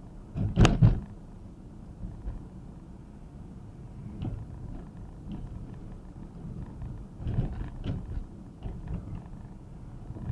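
Road noise inside a moving car: a steady low rumble with scattered knocks and thumps, the loudest about a second in and a cluster more near the end.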